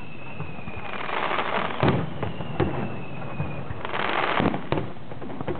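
Aerial fireworks: several sharp bursts, the loudest about two seconds in and near the end, with two stretches of crackling. Twice a whistling tone falls slightly in pitch.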